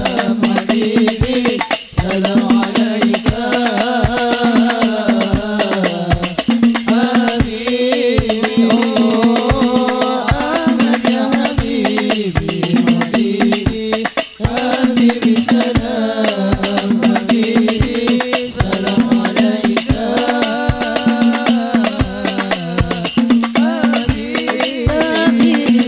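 Live sholawat: devotional singing with a wavering, melismatic melody over hand-held frame drums (rebana) beating a steady rhythm.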